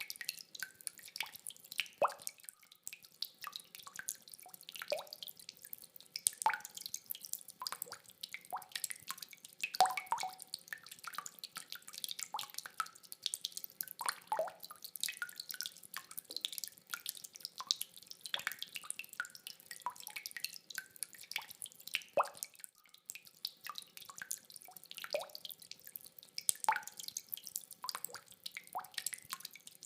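Rainwater dripping: many separate drops falling at uneven intervals, several a second, some landing as louder ringing plinks. No thunder.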